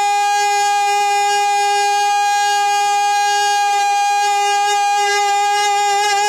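A man's singing voice holding one long, unwavering note, which starts to waver into a falling ornament near the end.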